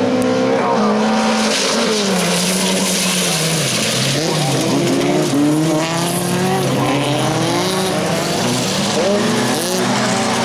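Several folkrace cars racing on a gravel track, their engines revving up and dropping back as they accelerate and shift, overlapping one another.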